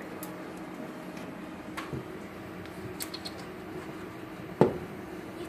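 A quiet room with a steady low hum and a few faint, sharp clicks and taps. One sharp thump comes about four and a half seconds in.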